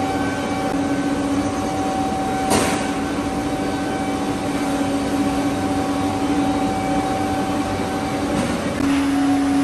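Overhead crane running as it carries a ladle of molten steel: a steady mechanical rumble with a steady hum, and one sharp clank about two and a half seconds in.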